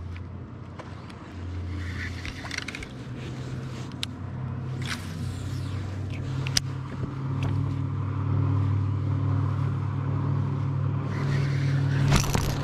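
Steady low motor hum that grows louder, with a few small clicks and rustles from handling a baitcasting reel and line.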